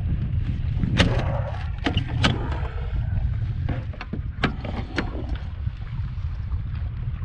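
Wind buffeting the microphone as a steady low rumble, with several sharp knocks and clicks from gear being handled, the loudest about a second in.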